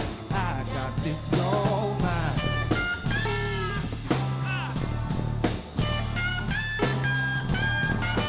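Live blues-rock band playing, led by an electric guitar solo on a red SG: bent and wavering lead notes over bass and drums.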